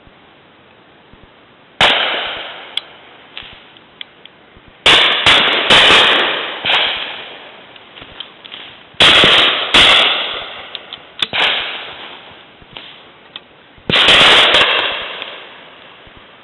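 Shotguns firing at game birds: about nine shots, spaced irregularly and some in quick pairs, several very loud and close, each trailing off in a long echo.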